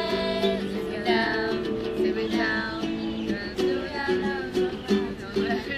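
Young women singing a song together to a strummed small acoustic guitar, with steady chords under the voices.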